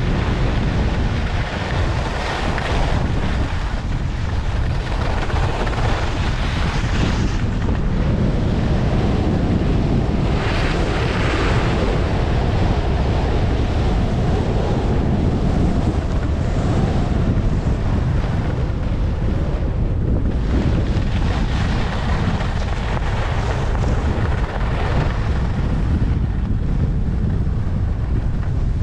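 Heavy wind buffeting an action camera's microphone during a fast ski run at about 22 to 32 mph. Under it is the hiss of skis sliding and carving on groomed snow, which swells and fades every few seconds.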